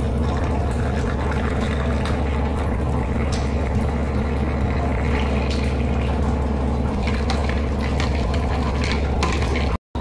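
Liquid pouring in a thin stream into a plastic tumbler of milk, a steady filling sound that breaks off for a moment near the end.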